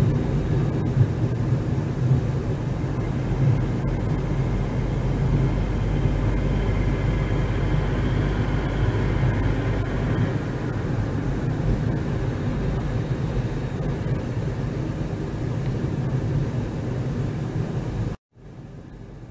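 Car engine and tyre noise heard from inside the cabin while driving, a steady low rumble. Near the end it cuts out completely for a moment and comes back quieter.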